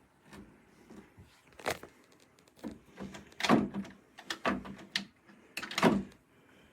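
Interior privacy door lever and its latch being worked: about six sharp clacks and thunks over a few seconds.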